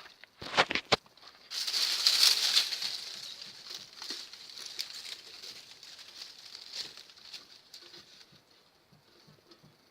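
Bonfire of dry leaves and trash crackling: a few sharp pops, then a louder rush of crackling and hissing about a second and a half in that slowly dies down to scattered pops.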